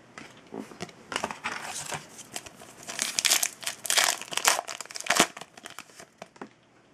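A trading card pack's foil wrapper crinkling and tearing as it is pulled open by hand. The crackling is densest in the middle and dies away near the end.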